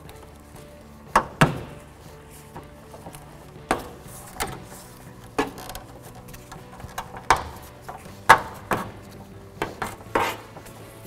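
Metal hood prop rod of a Honda CR-V clattering and knocking against the radiator support and nearby parts as it is worked free by hand. About a dozen irregular sharp knocks and rattles, the loudest about a second and a half in and again about eight seconds in.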